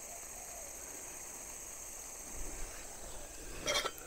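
Steady high-pitched insect chirring, a forest insect chorus, with a short clatter of metal near the end.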